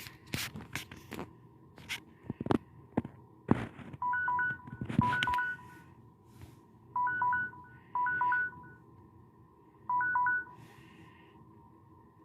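A few clicks and knocks, then a Samsung Galaxy S3 Mini phone's ringtone playing through its speaker: short electronic beeps alternating between two pitches, in clusters that repeat about every second or two.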